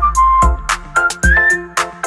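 Background music with a steady beat and a high, sliding whistle-like melody.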